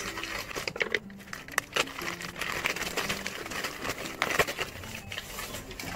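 Newspaper wrapping being pulled open and crumpled by hand, an irregular run of rustles with sharp crackles.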